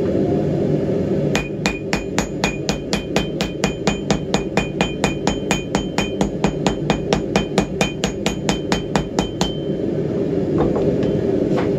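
Hand hammer striking glowing steel on an anvil in quick, even light taps, about four a second, each with a ringing metallic note. They start about a second and a half in and stop about two seconds before the end. The taps set a forge weld in a wrapped-eye tomahawk head, mild steel wrapped around a high-carbon steel bit. A steady low rushing noise runs underneath throughout.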